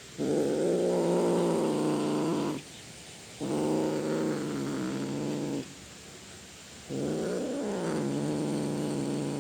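A cat giving three long, low-pitched drawn-out calls of about two seconds each, with short pauses between; the third wavers in pitch partway through.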